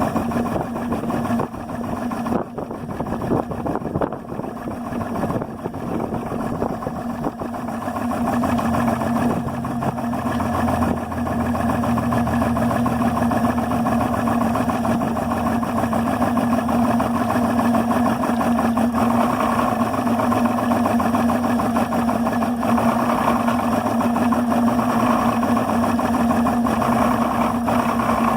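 Yamaha 300 HPDI two-stroke V6 outboard engine idling roughly at about 400–500 rpm, wavering in level for the first several seconds and then running steadier; the owner does not know the cause of the rough idle.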